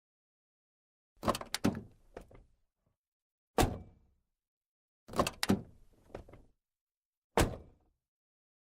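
A sound-effect sequence played twice with dead silence around it: a quick cluster of clicks and clunks, then a single sharp bang about two seconds later.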